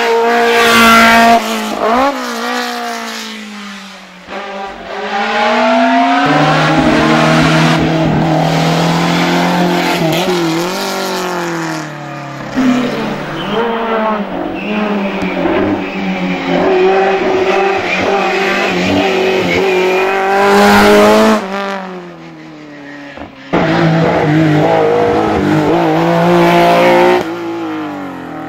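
Several racing cars driven hard past one after another, engines revving up and dropping in pitch over and over through gear changes and lifts off the throttle.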